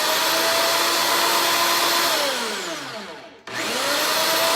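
Electric motor of a home-built ring-cutting machine running at a steady speed. About two seconds in it is switched off and winds down with a falling whine, then it is switched on again and runs up to speed.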